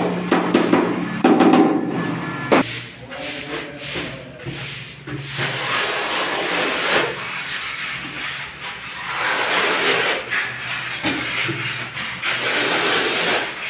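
Steel notched trowel scraping and combing cement tile adhesive across a wall, in repeated long rasping strokes. It opens with louder rubbing against the tile that ends in a sharp knock about two and a half seconds in.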